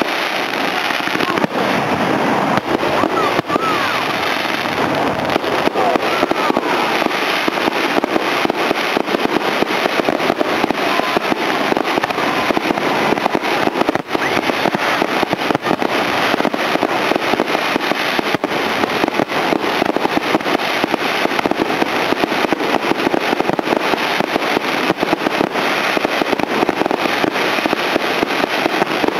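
Aerial fireworks display in a dense, unbroken barrage: shells launching and bursting in quick succession, the bangs and crackle overlapping with no pause.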